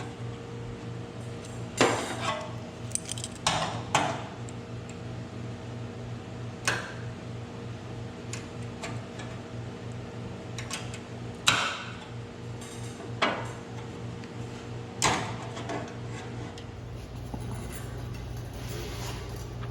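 Irregular metal clanks and knocks, about seven in all, from sheet-metal body work: panels and tools being handled and struck. A steady low hum runs underneath.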